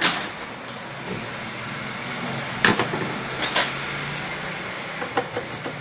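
A few sharp clicks and knocks as small parts of an orange juicer are handled and worked loose to take off its end covers. From about four seconds in, a bird chirps repeatedly in quick falling notes.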